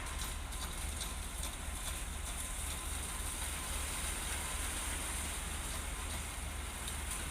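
An engine running steadily with a low drone and an even hiss.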